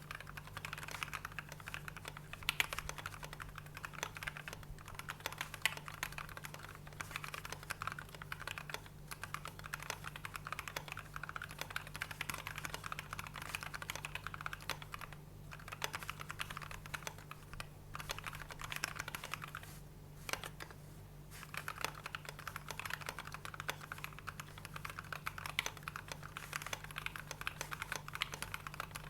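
Fast, continuous typing on a KBD67 v2 MKII custom mechanical keyboard with lubed, filmed Gateron Ink Black linear switches and PBT OSA keycaps, with a few short pauses around the middle.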